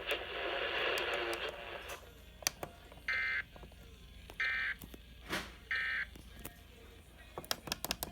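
EAS end-of-message signal received over FM radio: three short bursts of digital data tone, about a second and a third apart, marking the close of the alert. Hissy noise comes first, and scattered clicks run through it.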